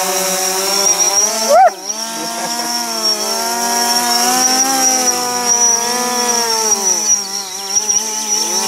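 DJI Phantom 4 quadcopter's motors and propellers buzzing, with a steady high whine above. The pitch wanders as the motors speed up and slow, with a brief sharp rise and fall about a second and a half in.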